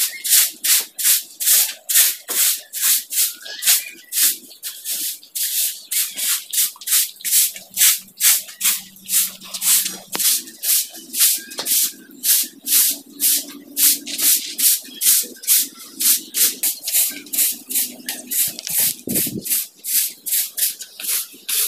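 Short hand-held grass broom sweeping a concrete floor in quick repeated strokes, about two or three swishes a second.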